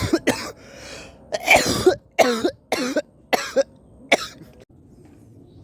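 A person coughing or hacking harshly, about seven loud bursts in quick succession over four seconds, some with a strained voice that dips and rises in pitch.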